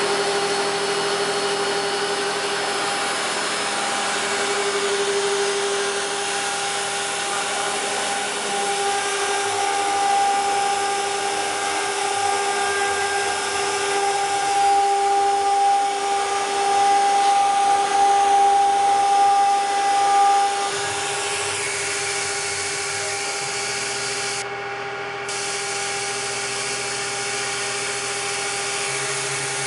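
CNC stone engraving router's spindle running with a steady high whine while its small bit carves letters into a stone slab, the grinding of the cut mixed in. It grows a little louder for several seconds midway.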